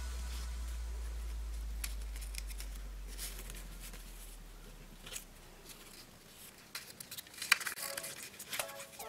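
Origami paper rustling and crackling as hands fold and crease it, with scattered small ticks and a sharp crackle late on. A low note of background music fades out over the first few seconds, and music starts again near the end.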